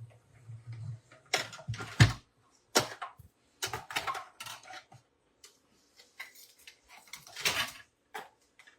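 A die-cutting machine hums for about a second and stops. Then come repeated clicks and clatters as the cutting plates and metal die are taken out and handled, with the loudest knocks about two seconds in and again near the end.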